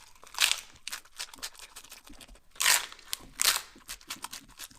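Close-miked crunchy bites into Taco Bell food: a few short crunches with small clicks and crackles between.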